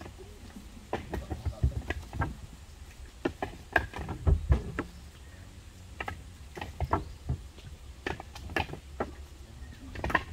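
Husked coconuts knocking against one another as they are handled and dropped onto a load: an irregular run of hard knocks, with a few heavier thumps about four seconds in.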